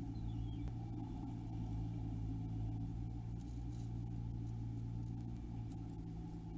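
Steady low electrical hum from the nest-box camera set-up, with faint scratches as a great tit shifts about on its moss nest.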